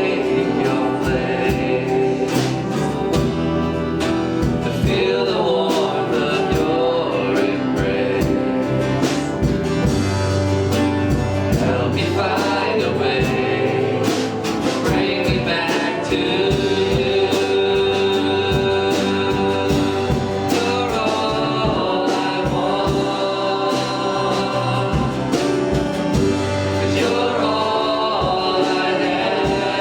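Congregational worship music: singers backed by a band with a steady beat.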